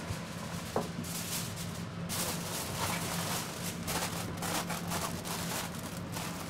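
Plastic bag crinkling and rustling in the hands, in bursts from about two seconds in, over a steady low hum.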